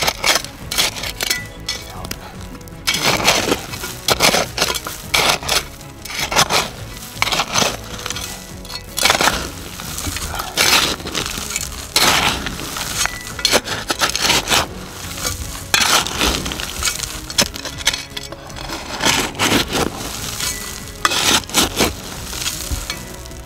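Digging in loose volcanic cinder and rock: a run of irregular scrapes, crunches and clinks of stones, over background music.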